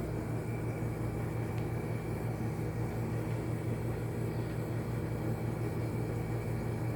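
Steady low background hum, unchanging throughout, with a faint thin high whine over it.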